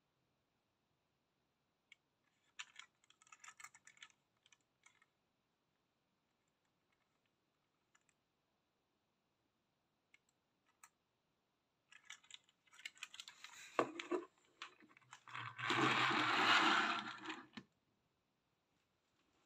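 Small clicks and taps of a toy bus being handled, then the toy MAN Lion's City bus set down on a hard desktop and pushed along, its small wheels rolling noisily for a couple of seconds near the end before stopping suddenly.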